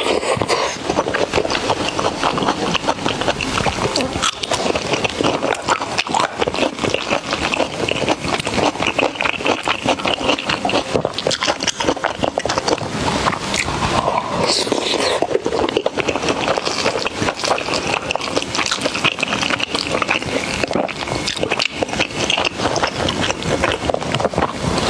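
Close-miked eating: continuous chewing of food, with dense, rapid mouth smacks and crackles.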